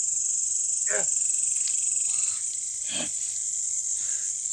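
Steady high chirring of a chorus of crickets and other night insects, with two brief short sounds about one and three seconds in.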